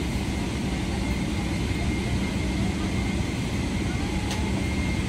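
Steady low rumble and rushing air of a Boeing 777-300ER cabin, with a faint steady high whine over it and a faint click about four seconds in.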